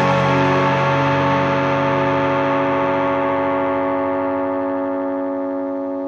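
The last chord of a rock song, played on distorted electric guitar through effects, held and ringing on as it slowly fades.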